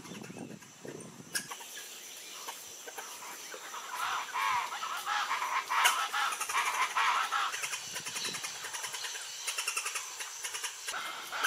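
Birds calling in the trees over a fast, steady, high-pitched pulsing chatter, with a louder run of warbling calls about four to eight seconds in.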